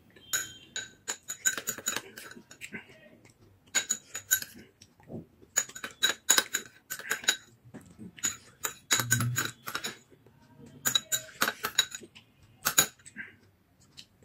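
Metal spoon clinking and scraping against a small ceramic bowl in irregular clusters of sharp, ringing clinks, as the last of the food is scooped out of the bowl.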